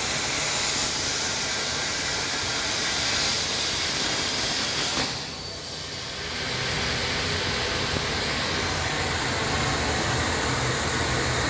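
CNC cutting machine running, its cut giving a steady loud hiss that stops suddenly about five seconds in and builds back about a second later, with a low hum under it.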